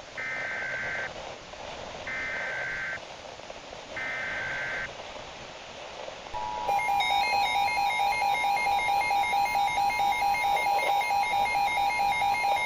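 Emergency Alert System signal: three screeching SAME digital header bursts, each about a second long and two seconds apart, then the steady two-tone EAS attention signal starting about six seconds in, over a steady hiss. It is the opening of a severe thunderstorm warning.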